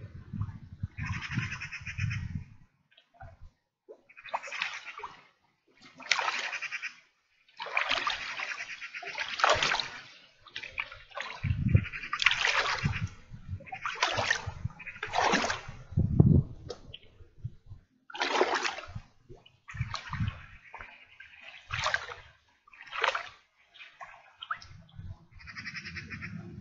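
Splashing of a person wading through shallow water, in irregular bursts of a second or less with short gaps between them, mixed with a few low thumps.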